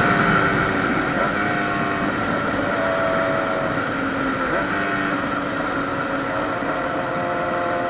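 Honda Hornet motorcycle's inline-four engine running while riding, its note shifting pitch twice, about a second in and again about four and a half seconds in.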